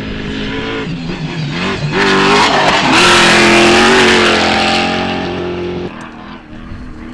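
Trophy Truck race engine at high revs as the truck passes close, the pitch dipping briefly and then climbing hard as it accelerates, with a loud rush of tyres throwing dirt and gravel about two to five seconds in. The sound cuts off suddenly about six seconds in, leaving a fainter engine.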